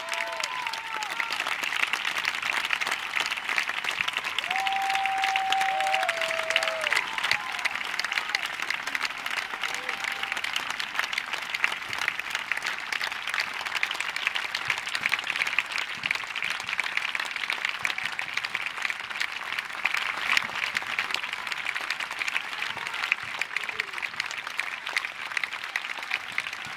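Concert audience applauding steadily after a song ends, a dense sustained clapping from a large crowd.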